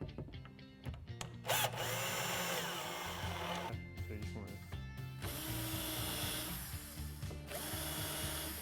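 Power drill running in three bursts of about two seconds each, screwing the bottom bracket into the cabinet.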